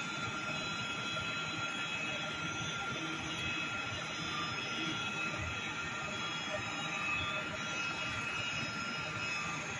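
CNC vibrating-knife cutting machine running as it cuts cardboard: a steady mechanical whine from the high-frequency oscillating blade head and its drives, with several thin high tones held over an even hum.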